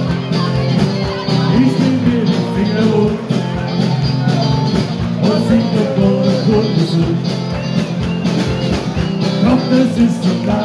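Live band playing amplified music with guitar, keyboards, drums and a singer, a steady beat running under it.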